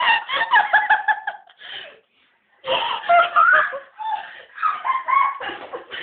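Young women laughing, in two bouts broken by a short pause about two seconds in.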